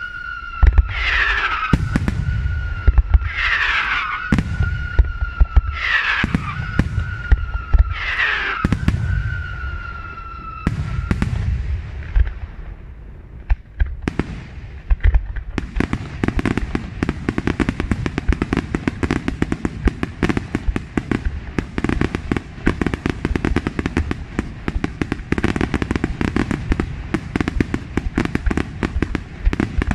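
Aerial fireworks display: low booms of bursting shells with a series of falling whistles about once a second. About halfway through this gives way to dense, continuous crackling.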